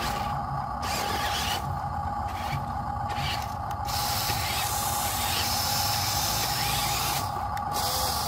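RC dump truck's electric motor and gearbox whining steadily as it drives in mud, with repeated bursts of hiss coming and going as the wheels churn through the mud.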